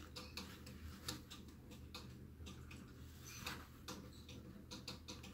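Faint, irregular light clicks and ticks as a 2 oz .999 fine silver round is handled and turned between the fingers, over a steady low hum.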